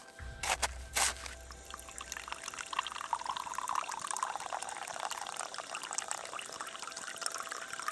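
Hot water pouring in a steady stream from a stainless steel vacuum flask into an enamel mug, the splashing rising a little in pitch partway through. A few sharp clicks come just before the pour.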